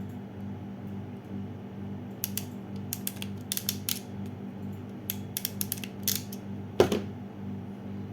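SN-03BM ratcheting crimping tool being squeezed shut on a connector terminal: a run of sharp ratchet clicks over a few seconds, then one louder snap a little before the end as the tool completes the crimp and releases. A steady low hum sits underneath.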